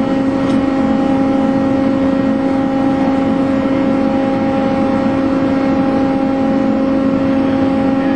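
Steady machinery hum aboard an icebreaker, a loud unchanging drone with a strong low pitched tone and its overtones over a rushing noise.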